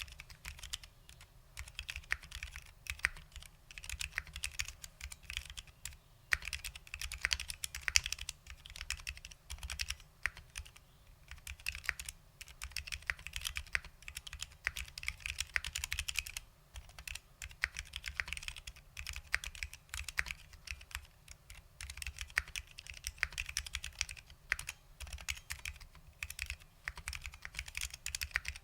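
Continuous fast typing on a mechanical keyboard with lubed SKCL Green Alps switches and OG ABS doubleshot Alps keycaps: dense runs of key clicks broken by brief pauses every few seconds.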